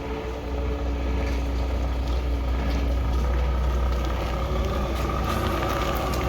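Heavy truck's diesel engine running steadily with a deep low drone as a truck moves off.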